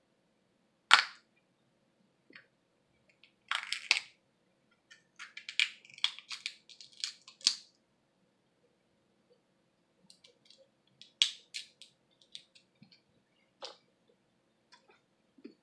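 Snow crab leg shells cracked and snapped apart by hand: one sharp crack about a second in, then several spells of crackling and snapping shell.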